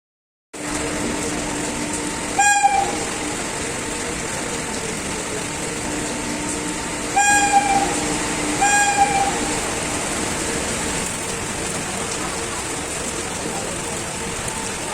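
WAP-4 electric locomotive's horn giving three short, bird-like toots, one about two seconds in and two close together around seven to nine seconds, over the steady running noise and hum of the passing train.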